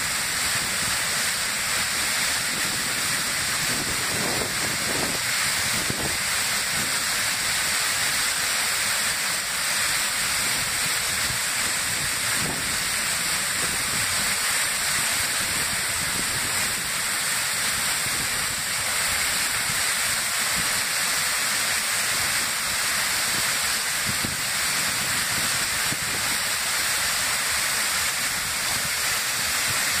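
Waterfall rushing steadily: a constant hiss of falling water that holds the same level throughout.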